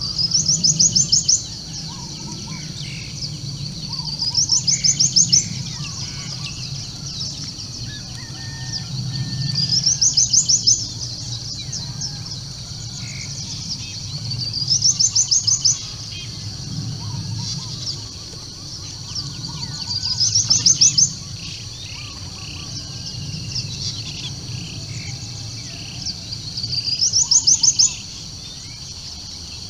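A bird repeating a short song of rapid notes that climb in pitch and grow louder, six times about five seconds apart. Other birds call faintly under a steady high hiss and a low rumble.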